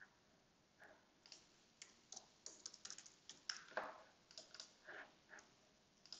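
Faint typing on a computer keyboard as layer names are typed in: a few separate key presses, then a quicker, uneven run of keystrokes.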